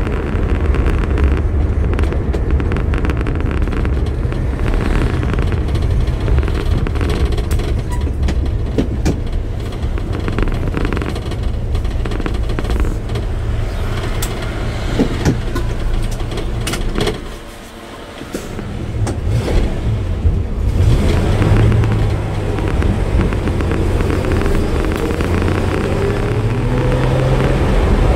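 Vauxhall PC Cresta's straight-six engine running, heard from inside the cabin with road noise as the car is driven. The sound drops briefly about two-thirds of the way in, then the engine note rises again as the car pulls away near the end.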